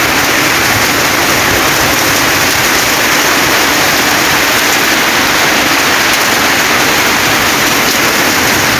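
Rainwater runoff rushing and flowing: a loud, steady wash of water noise without a break.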